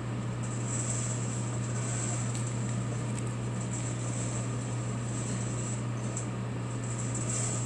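ASRw-01 hot-air sample coffee roaster running mid-roast: a steady hum from its fan and heater with an even hiss of moving air.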